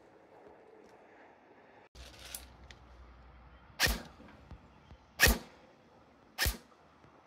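Delta Armory Bravo Silent Ops ETU M4 airsoft electric gun firing three single shots, each a short sharp pop, about a second and a half apart in the second half.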